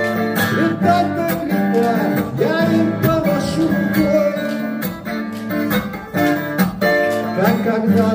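Twelve-string acoustic guitar strummed in a steady rhythm, with a man singing along into the microphone.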